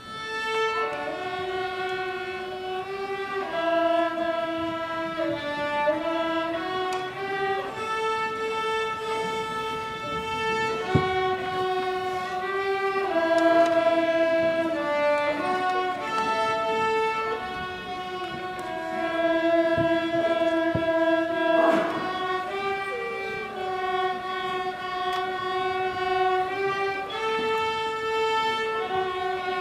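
Three young players on bowed string instruments playing a slow melody in long held notes, with more than one part sounding together.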